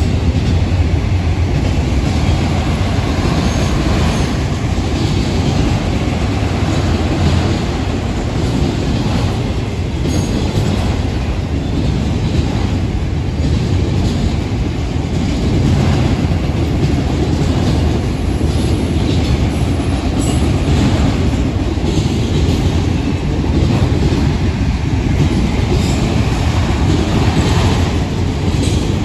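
Empty autorack freight cars rolling steadily past: a continuous rumble of steel wheels on rail, with clicks as the wheels cross rail joints.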